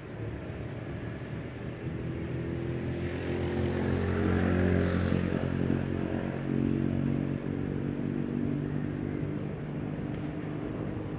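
A motor vehicle's engine humming at a steady pitch, growing louder to its loudest about four to five seconds in, then fading as it passes by.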